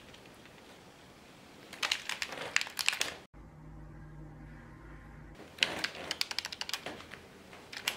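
Two bursts of rapid plastic clicking, each lasting about a second, from a wired game controller being handled and its buttons pressed quickly, over a faint low room hum.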